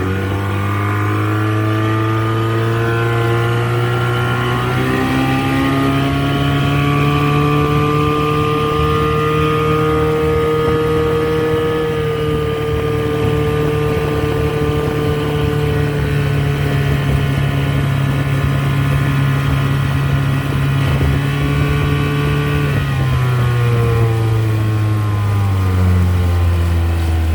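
1985 Mercury 35 hp two-stroke outboard motor being throttled up from idle on a test run after a carburettor rebuild and adjustment. The engine pitch rises at the start and again a few seconds in, holds steady at speed, then falls back as the throttle is eased off near the end.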